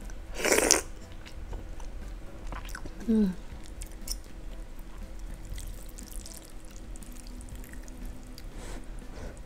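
Close-miked eating sounds from a mukbang of instant noodle soup with fried egg: a loud slurp about half a second in as a fried egg is bitten off the spoon, then soft chewing, with a short 'mm' about three seconds in.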